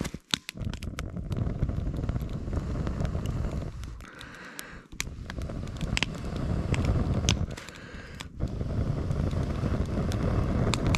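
Small wood fire crackling and popping inside a hollow log, with sharp snaps throughout. Under it run three long low rushes of air, each about three seconds, with short breaks between them.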